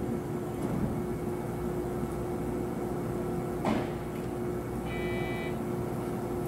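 JR Kyushu 811 series electric train standing at the platform, its onboard equipment humming steadily on one constant tone. There is a single click a little past halfway and a short high electronic beep about five seconds in.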